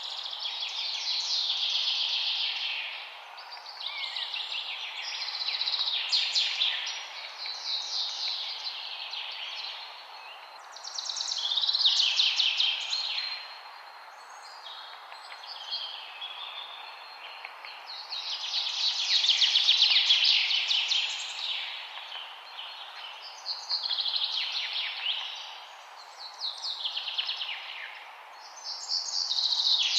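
Songbirds singing outdoors: high, rapidly trilled song phrases come and go every few seconds over a steady background hiss.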